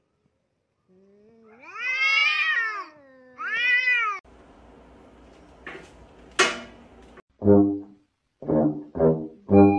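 A cat yowling at another cat in a face-off: two long, wavering yowls that rise and fall in pitch, the first starting about a second in. After them come a couple of sharp clicks and then several short, low grunts.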